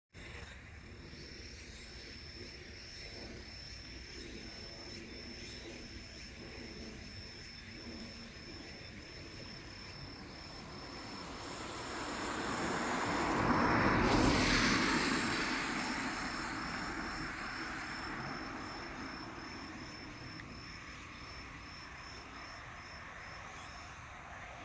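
Insects chirping in a steady, evenly pulsing rhythm, while a vehicle passes by, swelling to its loudest about halfway through and then fading away.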